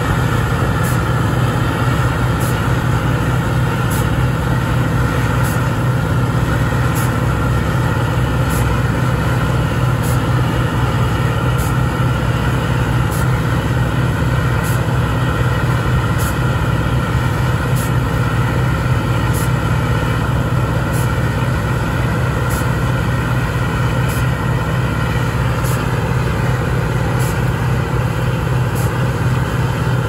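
New Holland TX68 Plus combine harvester, with its 310 hp Iveco engine, running under load as it harvests and unloads grain: a steady, even low drone. Faint high ticks come about every three-quarters of a second.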